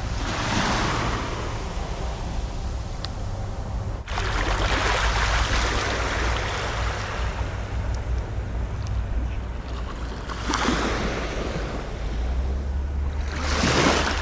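Small waves washing up a sandy beach and drawing back, surging about four times, with wind rumbling on the microphone.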